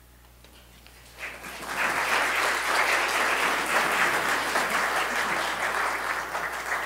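Congregation applauding, starting about a second in and beginning to die away near the end.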